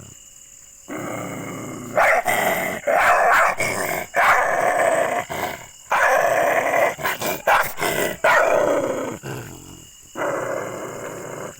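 A dog barking and growling aggressively in rapid, loud bursts, with a brief pause near the end before the barking starts again.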